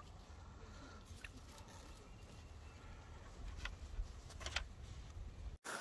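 Faint outdoor background: a steady low rumble, likely wind on the microphone, with a few faint clicks about a second in and again near the end.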